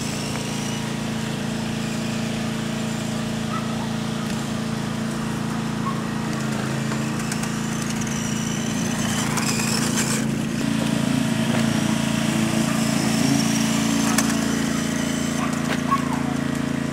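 Radio-controlled car's 540 electric motor whining up and down in pitch as it is driven, over a steady low hum.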